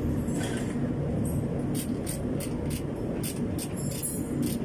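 Hand tool working on metal under a vehicle: a run of sharp light clicks, about three a second, starting a little under two seconds in, over a steady low rumble.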